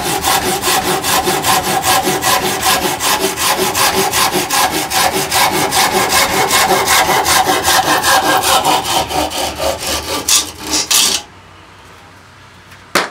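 Silky Sugoi 360 mm pull saw with a dull blade cutting through a piece of partly rotten hardwood in rapid, even strokes, stopping about eleven seconds in. The going is hard because the blade is dull. A single knock comes near the end.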